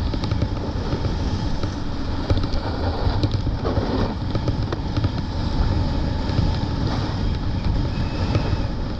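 Wind rushing over the microphone together with a snowboard sliding and scraping over packed, grooved piste snow at speed: a steady rumbling noise with small scrapes and clicks.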